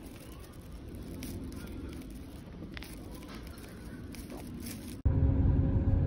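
A plastic carrier bag rustling and crinkling as it is held open. About five seconds in it cuts abruptly to the steady low rumble of a car heard from inside the cabin while driving.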